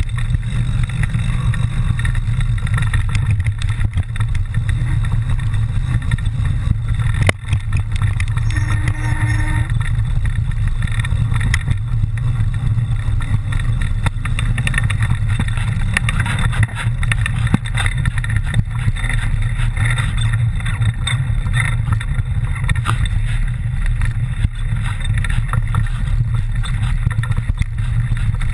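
Mountain bike riding down a rough trail: a steady low wind rumble on the microphone, with frequent clicks and rattles.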